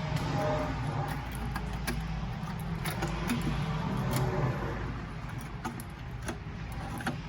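Small plastic clicks and rattles as a tail light's bulb-holder insert is worked out of one lens housing and fitted into another, over a steady low hum.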